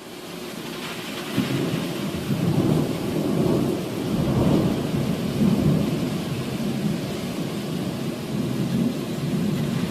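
Thunder rumbling during a rainstorm, a continuous low rumble that swells and eases, with the hiss of rain.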